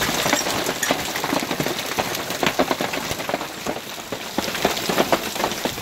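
Hailstorm: a dense, steady hiss of falling hail, with many sharp, irregular knocks of large hailstones striking hard surfaces.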